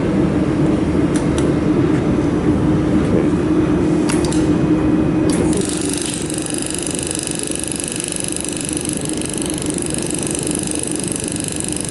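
Mould-repair laser welding machine running, with its dust collection fan and water chiller giving a steady hum. A couple of faint clicks come in the first half, and about halfway in a steady high-pitched whine starts.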